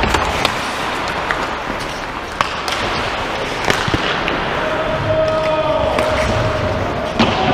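Ice hockey play: sharp, scattered clacks of sticks and puck striking over a steady hiss of skates on the ice.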